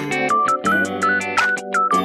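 Background music: an upbeat electronic track with a steady beat and a short plucked, bell-like melody.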